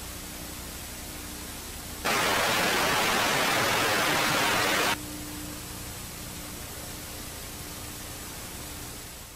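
Steady static hiss. About two seconds in, it jumps to a much louder burst of static that lasts about three seconds and cuts off abruptly. The hiss fades out near the end.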